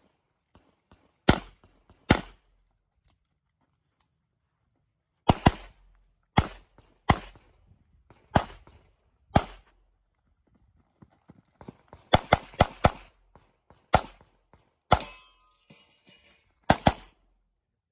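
9mm pistol shots in a practical-shooting course of fire: single shots and pairs spaced a second or so apart, with a quick string of about five shots around twelve seconds in.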